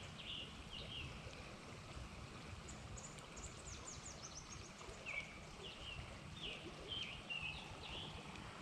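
Songbirds chirping in short repeated phrases, with a quicker run of high notes about three to four seconds in, over a faint uneven low rumble.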